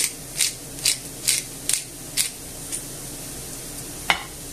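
Ground black pepper shaken from a small spice jar over a frying pan: a rhythmic rattling hiss, about two shakes a second, tailing off after about three seconds. One sharp click comes near the end.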